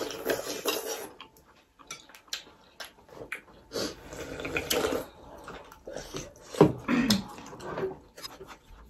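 People slurping and sipping hot chicken thukpa noodle soup from spoons and straight from the bowl, in about three loud slurps, with a few light taps of spoons on glass bowls in between.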